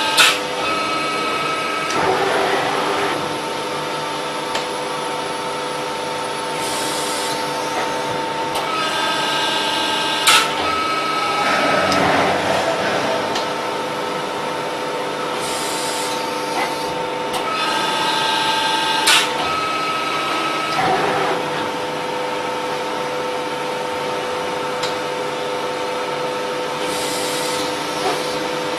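A CNC press brake running through repeated bending cycles: a steady machine whine made of several held tones that shift in a cycle repeating about every nine seconds, with a sharp click or clank near the start and again about 10 and 19 seconds in.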